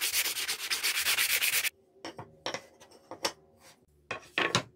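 A small piece of wood being sanded by hand in quick, even back-and-forth strokes. These stop abruptly under two seconds in, followed by a few light wooden knocks.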